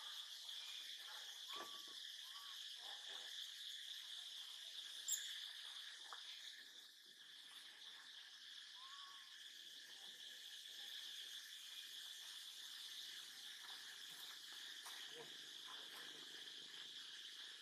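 A faint, steady high-pitched insect chorus drones on throughout. A few short, arching faint calls come in the first half, and one sharp high tick sounds about five seconds in.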